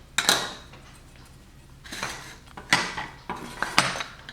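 Hard tools and parts being handled and set down on a workbench while measuring: a few separate sharp clicks and clatters, with a quick run of them around three seconds in.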